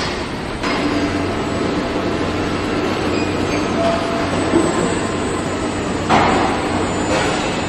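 Factory noise from a robotic car-body welding line: a steady machine hum and rumble, with short hissing bursts at the very start and again about six seconds in.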